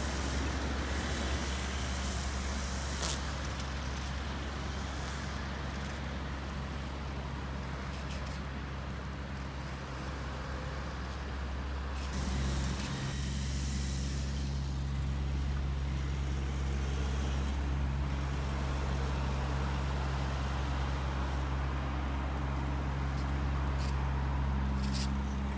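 A vehicle running with a steady low hum; about halfway through the hum changes and new steady tones join it, with a few short clicks along the way.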